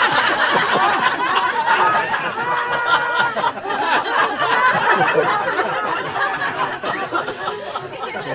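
An audience laughing and chuckling, easing off slightly toward the end.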